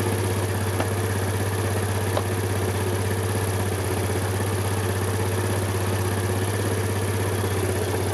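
Suzuki Let's 4 scooter's small four-stroke single-cylinder engine idling steadily with an even pulse.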